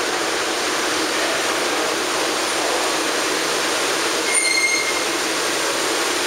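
R142A subway train standing at the station platform with its doors open, giving a steady rushing noise. A brief high-pitched tone sounds about four seconds in.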